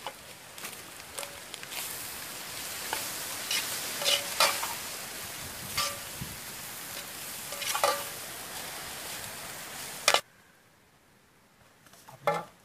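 Crumbled goat blood sizzling as it dry-fries in a large iron wok, with a metal ladle scraping and clinking against the pan several times as it is stirred. The sizzle cuts off suddenly about ten seconds in, followed near the end by a brief clatter of a slotted steel ladle against a steel bowl.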